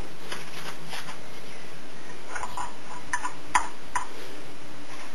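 A few light taps and clicks as a toddler moves about and marks a wall: faint ones in the first second, then about six sharper ones in quick succession around the middle, one louder than the rest, over a steady background hiss.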